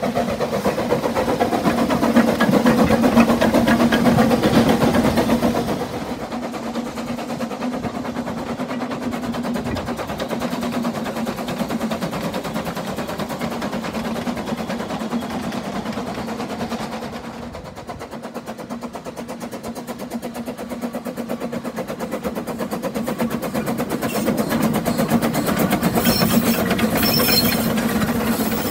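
Narrow-gauge steam locomotives working trains past at close range, a rapid, continuous chuffing from the exhaust over a steady hum, its loudness shifting from one take to the next.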